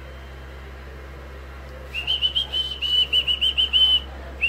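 High-pitched whistling: a fast run of short notes on nearly one pitch, about six or seven a second. It starts about two seconds in and pauses briefly near the end.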